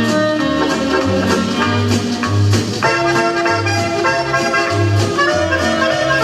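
Instrumental music, a melody of held notes over a pulsing bass line.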